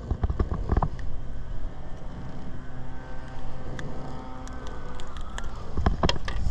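A motor running steadily with an even hum, over low wind rumble on the microphone and a few short knocks.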